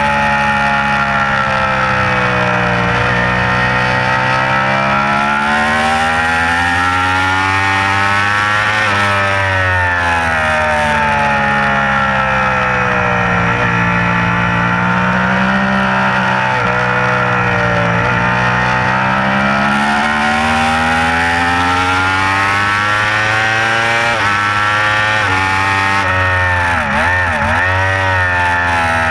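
Yamaha YZF-R1 (RN32) crossplane inline-four engine at racing speed, its pitch rising and falling repeatedly as the rider accelerates out of corners and rolls off into them. A steady rush of wind runs under it, and the pitch wavers quickly near the end.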